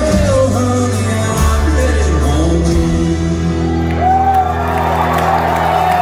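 Live country band playing and singing the closing bars of a song, ending on a long held note about four seconds in.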